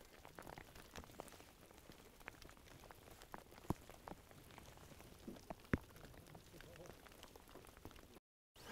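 Light rain falling: faint, scattered ticks of drops, with a couple of sharper ticks about four and six seconds in.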